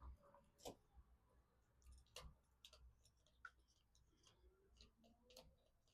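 Near silence with faint, irregular clicks and light taps of a screwdriver and metal lock hardware being handled.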